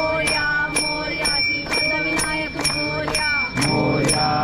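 Metal bell struck in a steady beat, about two and a half strikes a second, ringing on between strikes, while a group of voices chants along.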